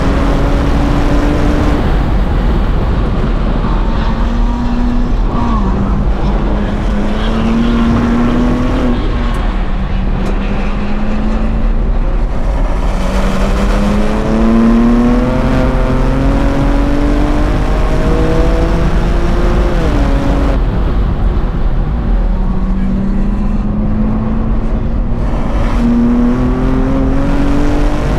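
2023 BMW M2's twin-turbo inline-six heard from inside the cabin at full racing pace: the engine note climbs again and again under acceleration and drops sharply at each gear change.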